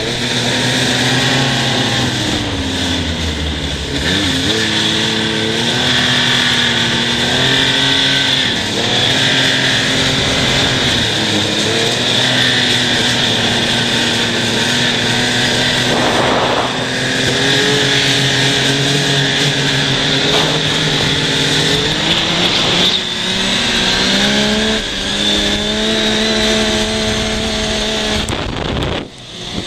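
Yamaha Nytro snowmobile's four-stroke triple engine running under way, its pitch rising and falling again and again as the throttle is opened and eased, over a steady rushing noise. The sound dips briefly near the end.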